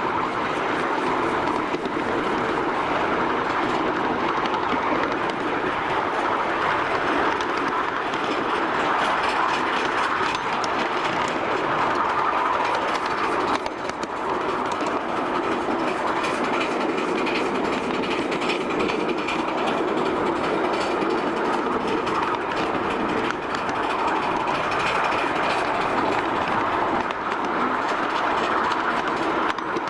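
Ride-on live-steam miniature train running along its track: a steady rumble and clatter of the cars' wheels on the rails, mixed with the locomotive's steam exhaust.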